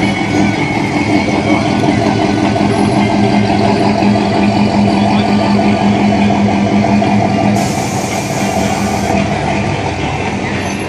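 Classic car's engine running at low speed as the car rolls slowly away through the lot. The steady rumble eases off about seven to eight seconds in.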